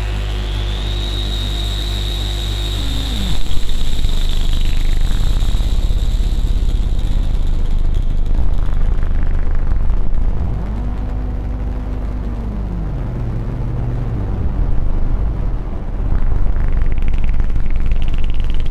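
Lumanoise v4 experimental noise synthesizer droning, run through a delay pedal and plate reverb. A high whistling tone sweeps up and then glides back down about three to four seconds in, and a low tone later rises and falls back down, over low buzzing tones and a dense noisy wash; the sweeps are filter sweeps.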